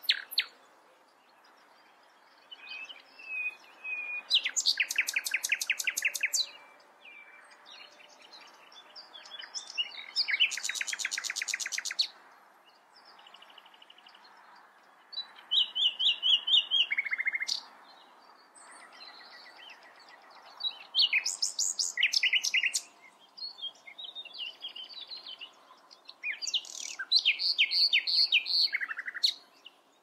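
Common nightingale singing in separate phrases a few seconds apart, with short pauses between them. Several phrases are fast runs of rapidly repeated notes.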